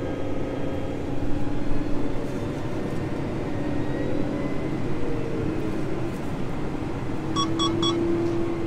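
Case IH Magnum 380 Rowtrac's six-cylinder diesel and drivetrain running under way, a steady hum with a whine in it, heard inside the tractor cab. Near the end, three quick electronic beeps from the cab.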